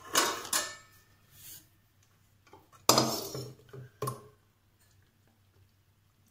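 Stainless-steel mixer-grinder jar clanking against a steel kadai as blended milk cream is tipped out of it: a few separate knocks, the loudest about three seconds in.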